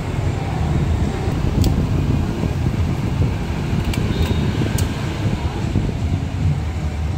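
A steady low background rumble, with a few light clicks of plastic juice bottles being handled: one about a second and a half in, and a couple more around four to five seconds in.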